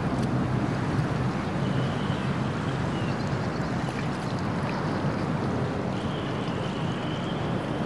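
Wind buffeting the microphone over a steady outdoor rush, with a faint thin high whistle held briefly about two seconds in and again from about six seconds in.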